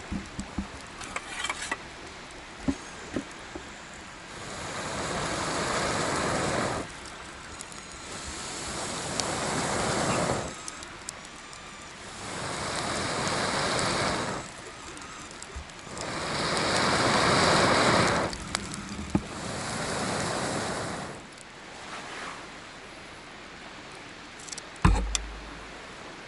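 Someone blowing on a campfire in five long breaths, each a rushing whoosh that builds over two or three seconds and cuts off, with small crackles and snaps from the fire in between and a thump near the end.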